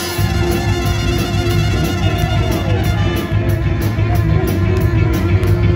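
Live band playing loud, upbeat music with a heavy bass line and a fast, steady beat, heard from within the crowd.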